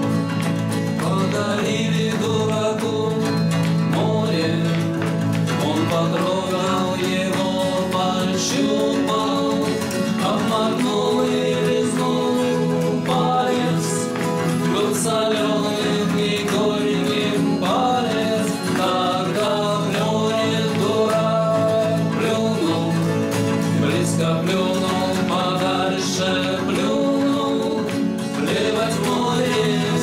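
A man singing a Russian bard song in Russian over two strummed acoustic guitars, the voice coming in about a second in after the guitar introduction.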